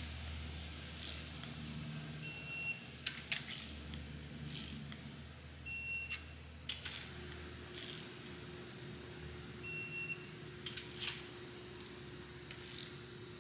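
Electronic torque wrench tightening cylinder head bolts on an LS V8, with ratchet clicks and metal knocks. Three short beeps a few seconds apart mark bolts coming up to the set torque.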